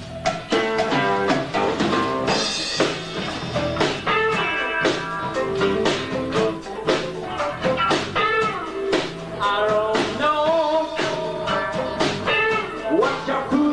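Live band playing a blues-rock number: electric guitars with bending notes over bass and a drum kit.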